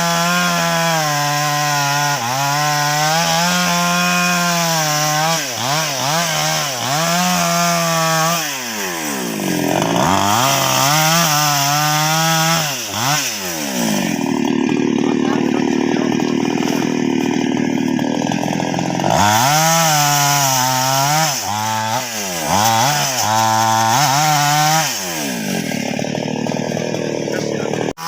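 Gasoline chainsaw cutting sengon wood, its engine pitch repeatedly sagging under load and rising again. For several seconds midway the tone gives way to a duller, rougher noise.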